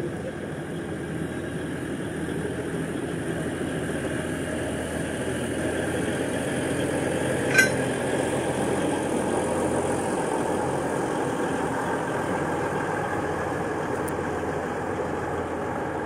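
Alishan Forest Railway diesel locomotive running as it pushes its wooden carriages past, the engine growing louder around halfway through as the locomotive goes by. A single short sharp click sounds about seven and a half seconds in.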